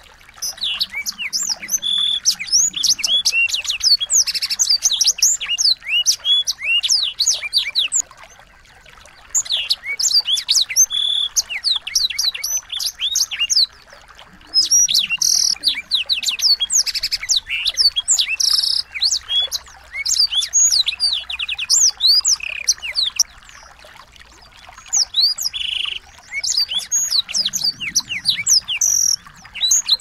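Small songbirds chirping: fast runs of short, high, sweeping chirps and trills, broken every few seconds by brief pauses.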